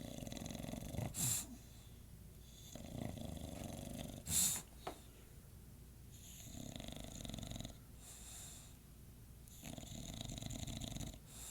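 English bulldog snoring, a raspy rattling snore on each breath, coming every couple of seconds, with two brief, louder snorts in the first half.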